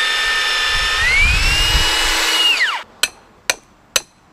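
Electric drill boring through 4x4 lumber: the motor whines steadily, steps up in pitch about a second in, then winds down as it is switched off. Sharp hammer strikes follow in a steady rhythm, about two a second.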